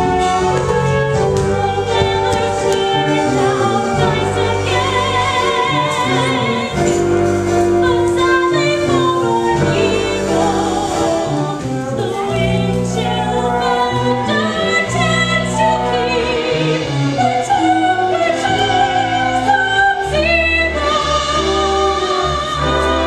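Musical-theatre song sung with vibrato over instrumental accompaniment, with several voices joining in.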